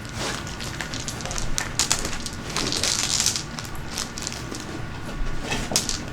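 Small gemstones being handled in a plastic bag: plastic crinkling, with stones clicking against each other. The crinkling is loudest about three seconds in.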